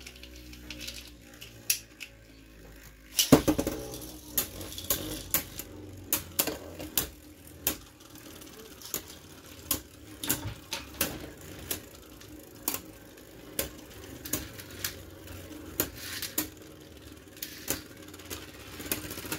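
Two Beyblade Burst tops launched into a plastic stadium with a sudden rip about three seconds in, then spinning against each other: a steady whir broken by irregular sharp clacks as the tops collide, in a stamina battle.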